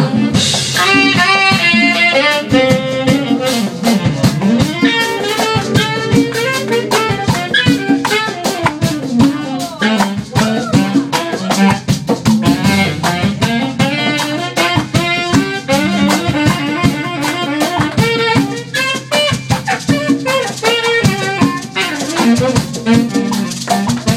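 Live band playing with a saxophone lead over a drum kit and rattling hand percussion.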